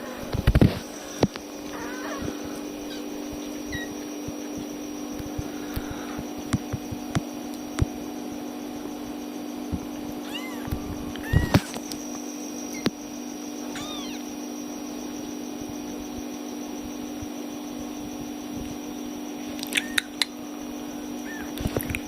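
Young kittens giving a few short, high-pitched mews over a steady low hum, with scattered clicks and knocks.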